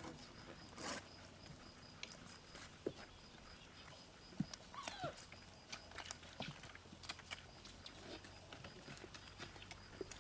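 Four-and-a-half-week-old puppies moving about on grass, faint: scattered small knocks and rustles, with one short falling whimper about five seconds in.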